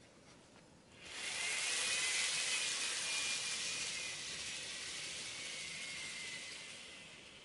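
N-gauge model of a Hankyu 1300 series train pulling out: a whirring motor and wheel hiss with a faint high whine. It comes in about a second in and fades slowly as the train moves away.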